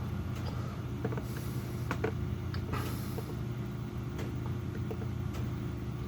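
Scattered light clicks of a computer mouse, about eight of them, over a steady low hum.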